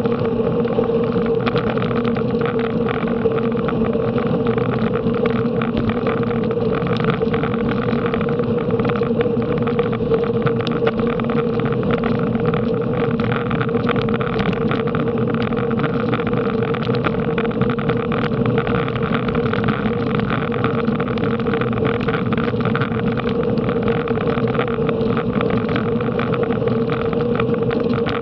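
Steady wind rush and road noise from a racing bicycle at speed, with a constant low hum underneath.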